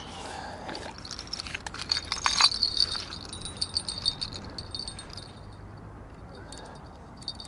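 Small bell of a fishing rod's bite alarm tinkling on and off just after the cast, following clicks and rattles of tackle being handled.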